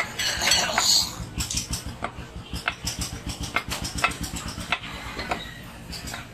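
Heavy meat cleaver chopping beef on a wooden log chopping block: a run of sharp, irregular knocks, about two or three a second.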